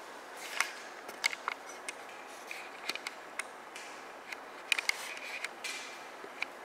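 Kitten claws and paws clicking and scuffing on a laminate floor as kittens scamper about, in scattered light taps with a few brief scrapes.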